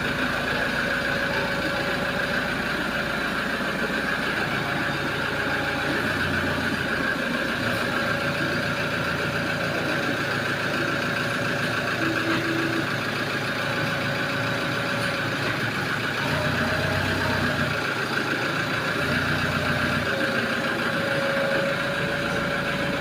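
Toyota HiAce van's engine running steadily, with a steady high tone over it.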